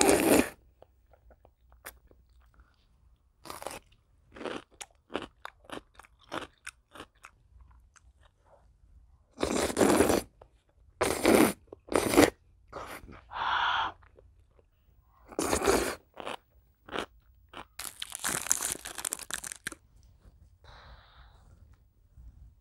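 A person eating ramen noodles thick with melted cheese: loud slurps of the noodles in several second-long bursts, one at the start and a run of them from about ten seconds in, with soft wet chewing and lip-smacking clicks between.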